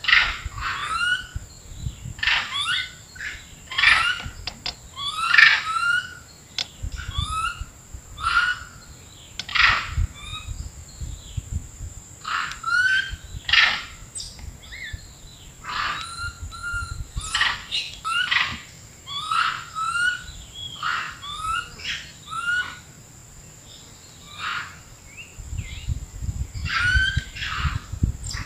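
A troop of long-tailed macaques calling: many short, sharp rising and falling calls in quick succession, often overlapping, over a steady high insect whine.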